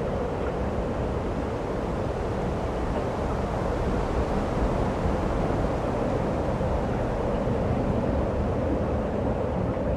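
Steady snowstorm wind: an even, low rushing noise with no clear strikes or changes.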